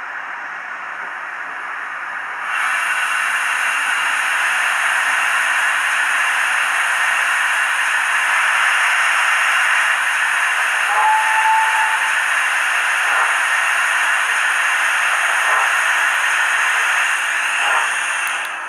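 Hornby HM7000 TXS sound decoder in a 9F model steam locomotive playing steam-hiss sounds through its small speaker. A low hiss grows much louder and fuller about 2.5 s in and holds steady, then fades near the end, with a brief tone about 11 s in.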